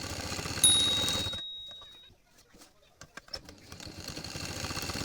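Sewing machine stitching at speed in a fast, even rattle. It stops about a second and a half in, leaving a few clicks, then starts again and builds near the end. A sharp high ringing tone starts just under a second in and fades over about a second.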